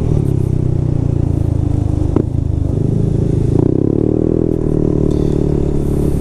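Yamaha NMAX 155 scooter's single-cylinder four-stroke engine running under way, its pitch rising and easing a few times with the throttle. There is a single sharp knock about two seconds in.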